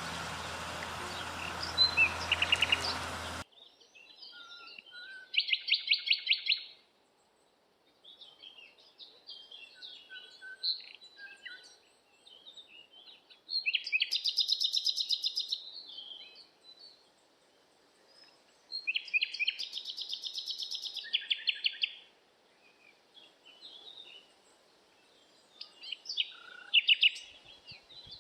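Songbirds singing. Several bursts of rapid, high trilled song come with short chirps between them. For the first few seconds a steady hiss lies under the birds, then cuts off suddenly.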